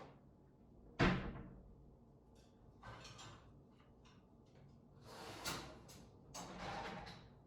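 Kitchen dishes and cupboard doors being handled while washed dishes are put away: a sharp knock about a second in, then several softer scraping clatters.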